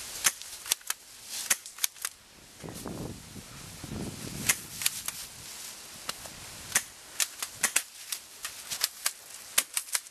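Airsoft shotguns firing: many sharp pops and cracks scattered irregularly, coming thicker in the last few seconds.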